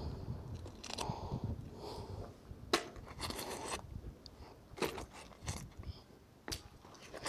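Gritty scraping and a few sharp clicks as a gloved hand pulls mud and rusty debris off a magnet-fishing magnet.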